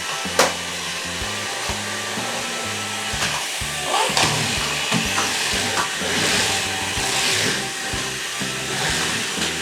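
A battery-powered Anpanman toy stick vacuum cleaner running with a steady whirring hiss, over background music. There is a sharp click about half a second in.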